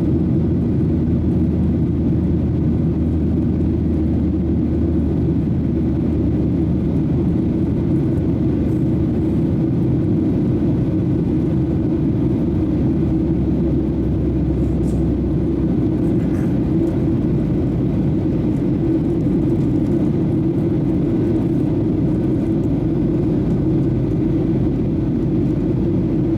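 Airliner jet engine and airflow noise heard from inside the cabin: a steady, muffled low rumble that holds unchanged.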